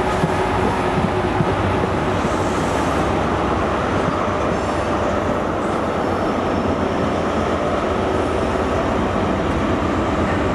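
A diesel-hauled passenger train of Mark 4 coaches rolling through the station: a steady rumble of wheels on rails with a few faint high tones over it.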